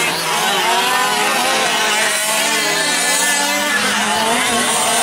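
Several gas-powered 1/5-scale RC off-road trucks racing, their small two-stroke engines overlapping, each rising and falling in pitch as it is throttled on and off.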